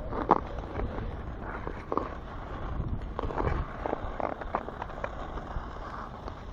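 Ice skate blades scraping and crunching in irregular strokes on rough natural lake ice with a loose, scratched-up top layer, over a steady low rumble of wind on the microphone.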